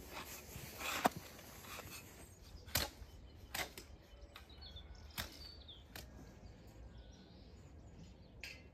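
Long-handled hoe scraping and chopping through a dry sand-and-cement mortar mix in a plastic wheelbarrow during the first second or so, followed by a few sharp, separate knocks about a second apart, with faint bird chirps.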